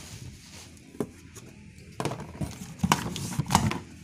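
Cardboard shipping carton being handled and opened, its cardboard flaps and cut packing tape rustling and scraping. There is a single knock about a second in, and a busier run of knocks and scrapes in the second half.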